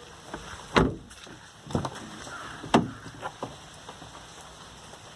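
A series of sudden thuds: three loud ones about a second apart, with fainter ones in between.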